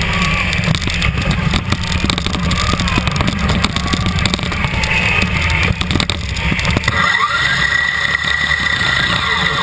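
FRC competition robot driving hard, heard from a camera on the robot: motors and gearboxes whine, the frame rattles, and there are many short knocks. A steady high whine comes in about seven seconds in.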